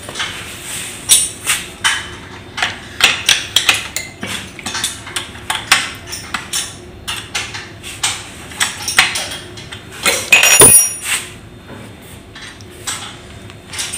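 Hand tools knocking and clinking against the metal parts of an air bike as its bolts and covers are worked loose for oiling: an irregular string of sharp clicks and knocks, with one louder ringing metallic clink about ten and a half seconds in.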